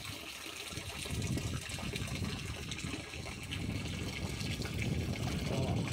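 Water gurgling out of the open mouth of a plastic fish-transport bag held at a pond's surface, mixing with the pond water as tilapia fingerlings are released. The sound builds up about half a second in and then runs on steadily.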